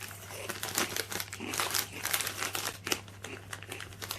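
Crisp packet crinkling and rustling in a series of irregular crackles, as the bag is handled.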